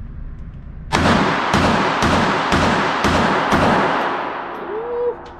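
Six pistol shots from a Ruger LCP .380, about half a second apart, each ringing on in an indoor range's echo. The magazine is emptied.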